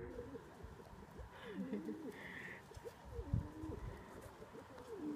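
Male domestic pigeon cooing, about four low rolling coos, a courtship bow-coo given with puffed neck and breast. A brief higher-pitched sound comes about two seconds in.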